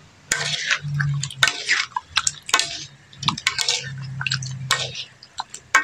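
Two utensils stirring chunks of catfish and vegetables in a sauce in a metal wok: irregular wet slopping and squelching, with a few sharp clicks of metal on the pan.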